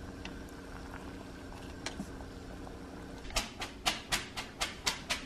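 A pot of rice noodles at a low boil, with a faint steady hum. From about three seconds in comes a quick run of sharp knocks, about four a second: a colander of drained rice noodles being shaken in the sink.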